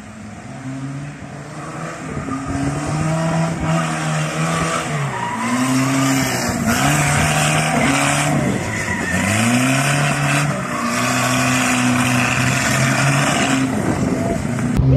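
A Chevrolet Chevette's four-cylinder engine revving up and down again and again as the car drifts on a wet track, with tyre noise swelling and fading. It grows louder over the first few seconds as the car comes closer. The engine has an ignition fault and is misfiring.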